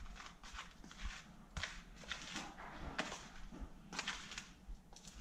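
A hand mixing dry seasoned breading flour in a plastic container: soft, irregular rustling and scraping strokes.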